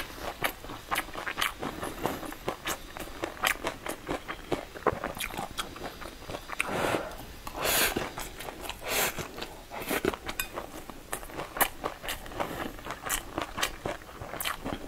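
Close-miked eating of stir-fried noodles: wet chewing with many sharp mouth clicks and smacks, and a longer slurp of noodles about seven seconds in.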